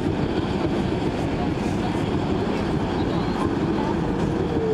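R142 subway car running at speed through a tunnel: steady rumble of wheels on the rails, with a whine rising and then falling away near the end.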